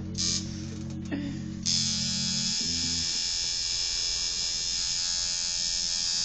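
Coil tattoo machine buzzing steadily while inking skin. Two short noises come in the first second or so, then a steady high hiss starts a little over a second and a half in, and the low buzz drops away about a second later.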